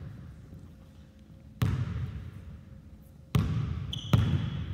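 Basketball bouncing on a hardwood gym floor, three separate bounces, each ringing on in the echo of the gym. A brief high squeak comes near the end.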